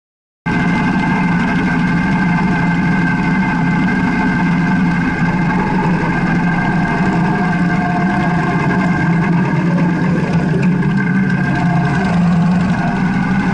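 Motorcycle engine running steadily while riding at a constant speed, heard from the rider's position on the bike. It starts abruptly about half a second in and holds an even pitch with no revving.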